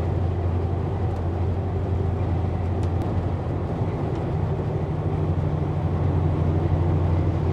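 A loaded semi truck running at a steady cruise, heard from the cab: an even engine drone with road noise and no change in speed.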